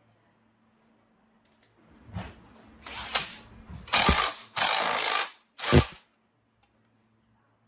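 Hand-tool work on small engine parts: a run of short, noisy mechanical bursts, the loudest from about four to six seconds in.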